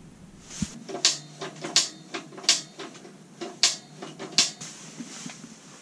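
Fishing gear being handled: a run of about five sharp clacks with rustling between them, a little under a second apart.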